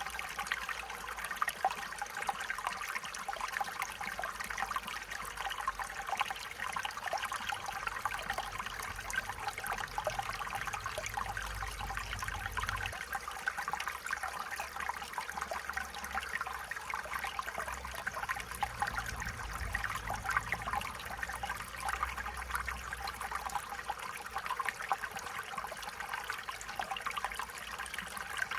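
Small stream running steadily, water trickling and babbling over stones, with a faint low rumble underneath for a while in the middle.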